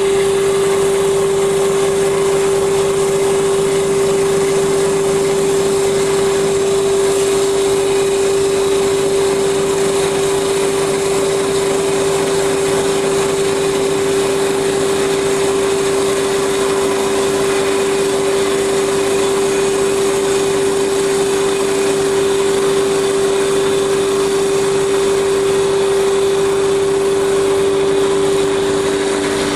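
Wood copy lathe running, its cutter shaving a spinning wood blank into a turned spindle: a steady pitched hum under an even hiss of cutting.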